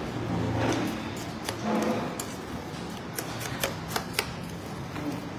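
Fingers and nails tapping on a smartphone touchscreen: a run of light, irregular clicks over a low background murmur.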